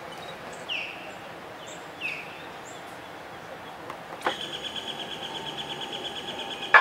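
Faint bird chirps, then about four seconds in the outboard's electric tilt-and-trim pump motor switches on with a click and runs with a steady, fast-pulsing whine. It cuts off with a sharp click near the end, as the freshly filled trim unit is run with air still in it.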